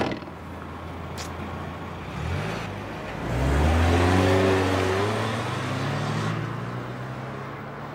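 Small convertible's engine (a Mazda MX-5 roadster) idling with a click or two, then revving up about two seconds in and accelerating away, its pitch climbing. It levels off and fades as the car drives off.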